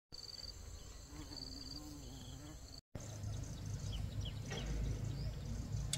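High insect-like trills and chirps repeating over a steady low rumble, with a short dropout about halfway through.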